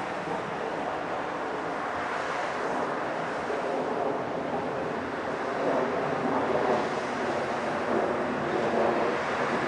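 Sounder commuter train with an EMD F59PHI diesel locomotive approaching: a steady rumble of engine and wheels that grows louder from about halfway in.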